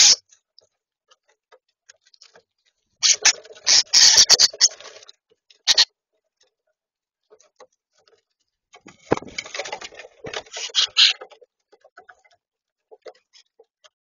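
Juvenile common starlings pecking and scrabbling in a plastic seed dish, seed rattling, in uneven bursts of sharp clicks with quieter scattered ticks between and a single solid knock about two-thirds of the way through.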